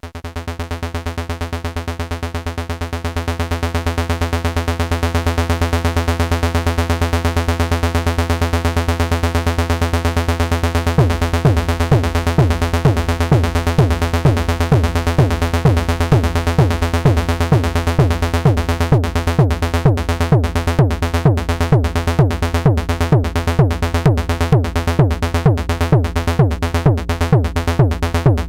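Modular synthesizer bass line of repeating enveloped notes, fading up over the first few seconds. About eleven seconds in, a four-on-the-floor synthesized kick drum with a falling-pitch thump joins it. From about nineteen seconds the bass ducks out on every kick: sidechain ducking made by mixing the kick's inverted envelope into the bass synth's VCA envelope.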